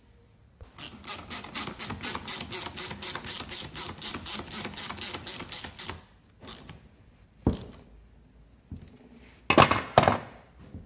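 Ratchet handle with a screwdriver bit clicking fast and evenly, about five or six clicks a second for some five seconds, as it drives in a screw of the air filter box. A single knock and then a couple of louder knocks follow near the end.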